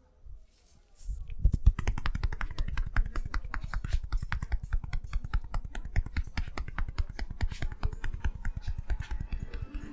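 Hands tapping rapidly on a person's head in a head massage: a fast, even run of quick taps, around ten a second, starting about a second in.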